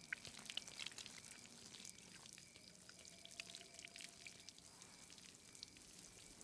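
Near silence: faint ambience with scattered soft crackles and ticks.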